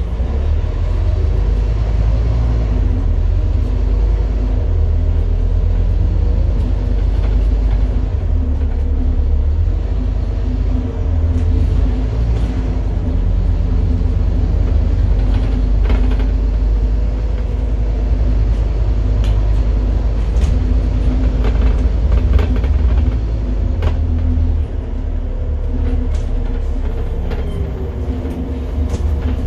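Scania N230UD Enviro 400 double-decker bus under way, heard from the upper deck: its freshly rebuilt five-cylinder diesel engine running with a steady low rumble. Occasional short clicks and knocks sound over it.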